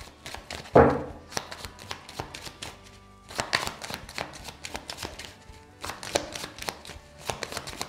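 A deck of tarot cards being shuffled by hand: a rapid, irregular run of soft card clicks and slaps, with one louder brief sound about a second in. Soft background music plays underneath.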